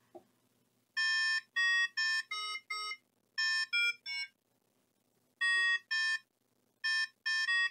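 DIY electronic light-harp kit playing short buzzy electronic notes as a hand breaks the light beams between its LEDs and photoresistors. About a dozen notes of changing pitch, each cut off abruptly, come in short phrases with a pause a little after the middle.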